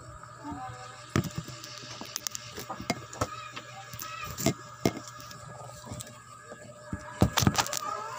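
Handling noise on a phone's microphone: scattered sharp knocks and rubbing as the phone is jostled, with a louder cluster of knocks near the end.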